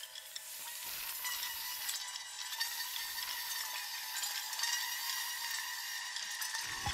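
Steady high hiss with faint crackles and a few faint held tones behind it: an ambient electronic sound-design texture rather than a melody.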